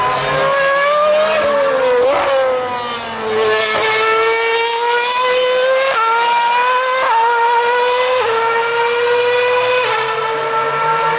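Formula One car's 2.4-litre V8 engine running at high revs, its high-pitched note climbing and stepping abruptly at gear changes several times. Quick pitch sweeps around two seconds and seven seconds in mark cars passing.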